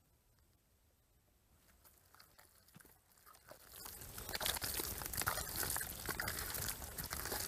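Hands digging and squeezing into soft wet mud, a crackling squelch of many small clicks that starts about four seconds in after a near-quiet start.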